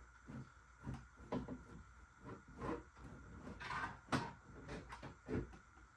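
Car trunk panels being handled: scattered light knocks and clunks, with a brief scrape about halfway through, as a trim piece is worked loose and the trunk floor panel lifts with it.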